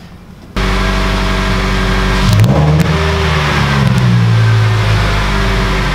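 The car's four-cylinder engine starts up abruptly about half a second in and runs steadily. It revs up briefly about two seconds in, then settles back.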